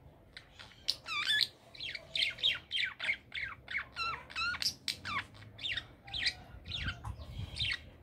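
Budgerigar warbling: a fast chattering run of short chirps and squawks, several a second.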